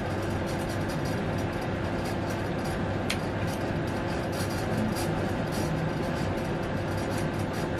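Steady mechanical hum and hiss from a running machine, with faint irregular ticks and one brief high squeak about three seconds in.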